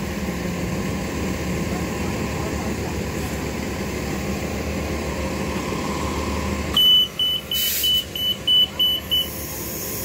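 2012 Gillig Advantage low-floor transit bus idling steadily. About seven seconds in, a warning beeper sounds a quick run of about eight short, high beeps.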